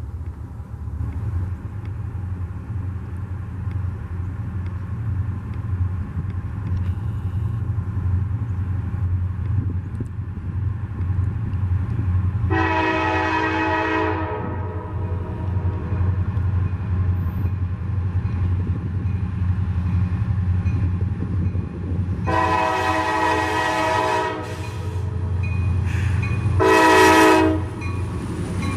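Approaching freight train led by an SD70MAC diesel locomotive: a steady low engine rumble grows slowly louder. The locomotive's multi-chime air horn sounds two long blasts and a short one, with another long blast starting at the end, the long-long-short-long grade-crossing signal.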